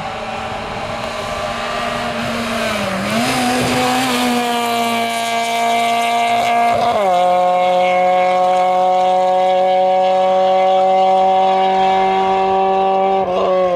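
Fiat Seicento slalom car's engine running hard at high revs. Its pitch dips and recovers about three seconds in, drops suddenly about seven seconds in, then holds steady as it grows louder, before dropping again near the end.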